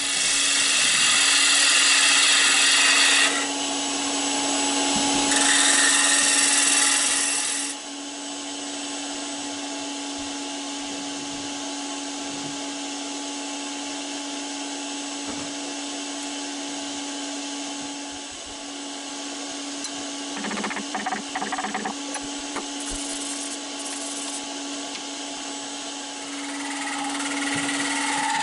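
Laguna 18|36 Revo wood lathe running with a steady hum, while a tool works the spinning wood in two loud hissing passes over the first eight seconds. It then runs more quietly, with some clicks past the middle and louder work again near the end.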